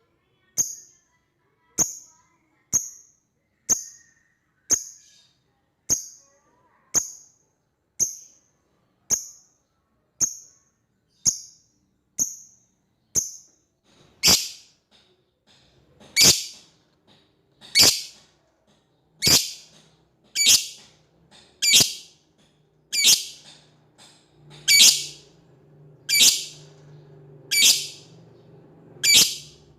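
Lovebird giving sharp, shrill single calls over and over, about one a second, becoming louder and a little longer and slower about halfway through: a call to a rival bird.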